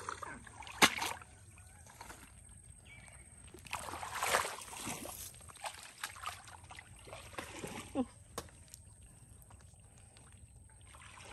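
Shallow muddy water sloshing and splashing as a person wades and handles a mud crab, with a sharp knock about a second in and a longer splash around four seconds in.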